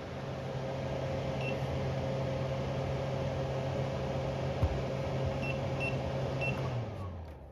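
Homerunpet Drybo Plus pet drying box's blower running with a steady hum, with a few short electronic beeps. Near the end it shuts off and the fan winds down, falling in pitch.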